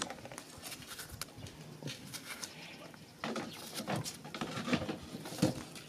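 Kitchen knife slicing through ripe tomatoes held in the hand, with the cut pieces dropping into a metal basin: a run of short wet cuts and soft taps that get louder and busier about three seconds in.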